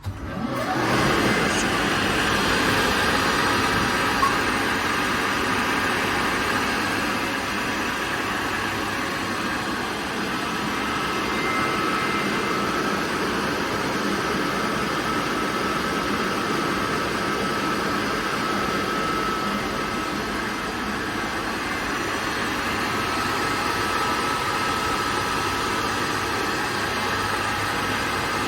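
KAESER Air Center SM10 5.5 kW rotary screw air compressor starting up. It comes up to full sound within about a second, then runs steadily as an even rushing noise with a faint high whine.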